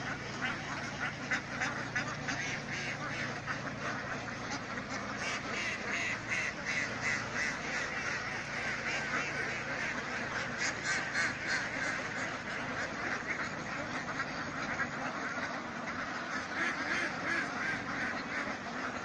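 A large flock of domestic Kuttanad ducks on the water, quacking in a dense, continuous chorus of overlapping calls. It is busiest in the middle.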